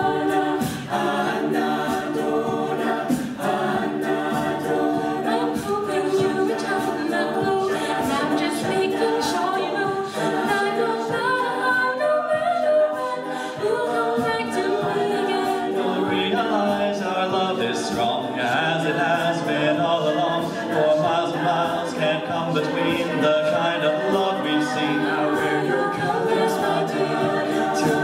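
Mixed-voice a cappella group singing live: a lead voice over layered harmonies from the rest of the group, continuous throughout.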